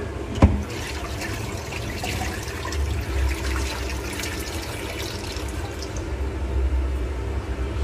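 Water running and splashing in a stainless-steel sink while a metal saucepan is handled, with many small splashes and clicks. A sharp metal clunk of the pot sounds about half a second in.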